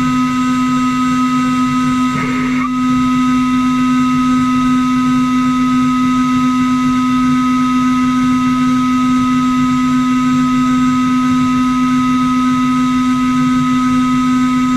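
CNC router spindle running at a steady whine while machining, holding one constant pitch, with a brief scratchy change about two seconds in.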